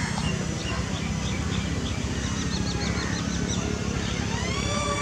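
Small electric motor and propeller of a foam RC F-22 Raptor jet whining up in pitch about four seconds in as the throttle is opened, then holding steady, over a steady low rumble. A run of short high chirps sounds in the middle.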